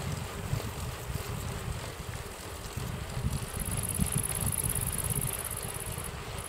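Wind buffeting the microphone of a camera on a moving bicycle, with tyre noise from riding on an asphalt path. A high, steady hiss joins in about halfway through and stops just before the end.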